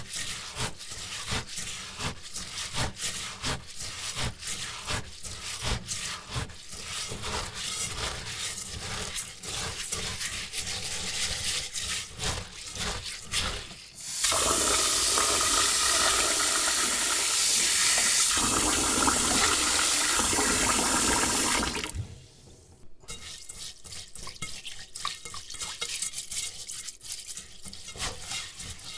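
Rice being washed by hand in a bowl: the grains rubbed and swished in quick, uneven strokes. About halfway through, a tap runs steadily for around eight seconds and cuts off suddenly, and then the rubbing strokes start again.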